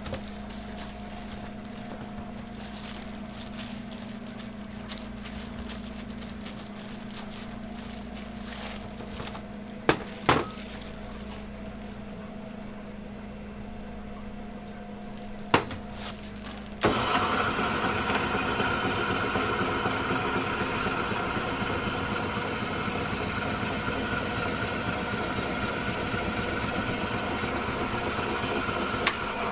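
Electric shaved-ice machine starting a little past halfway and then running steadily, a whirring hiss with a high held tone as its blade shaves ice into a melon shell. Before it starts there is only a steady low hum with a few sharp clicks.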